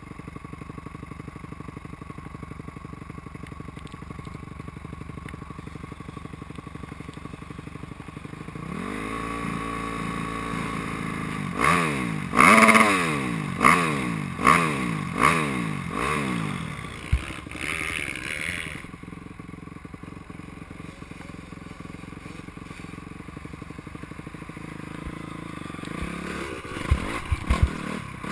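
Motocross bike engine idling, then revved in a quick series of throttle blips, about one a second, each rising and falling in pitch, before settling back to idle. A few sharp knocks near the end.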